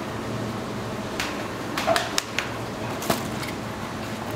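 A handful of short, sharp clacks and knocks, several close together about two seconds in and another a second later, over a steady mechanical hum.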